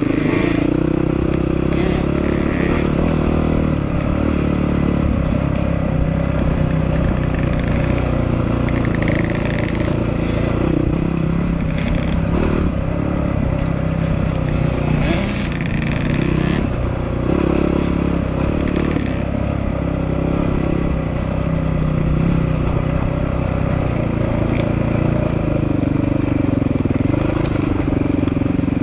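Dirt bike engine running under the rider, heard from on board, its pitch rising and falling again and again as the throttle opens and closes.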